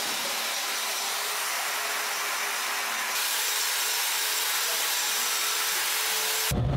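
Angle grinder grinding metal, a steady grinding noise that gets louder about three seconds in. Near the end it gives way abruptly to a low rumble.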